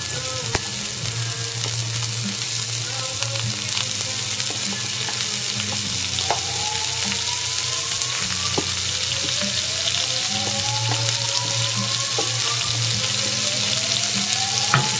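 Butter melting and sizzling in a hot stainless steel frying pan with chopped chives or green onions: a steady frying hiss. Three faint rising tones are heard in the background in the second half.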